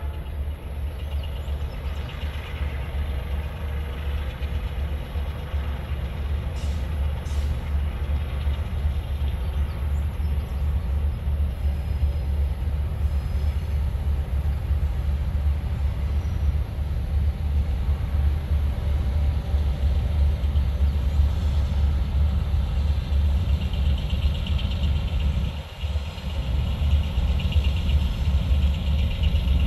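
Lead consist of EMD G22U diesel-electric locomotives running under power, a steady deep engine rumble that grows gradually louder as the train draws near, with a brief drop about 26 seconds in.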